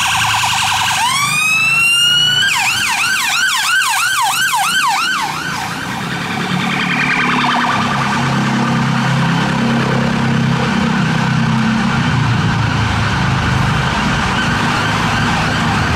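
British emergency vehicle siren: a rising wail for about a second and a half, then a fast yelp of quick up-and-down sweeps that stops about five seconds in. After that, engines and road traffic rumble steadily as vehicles move through congested traffic.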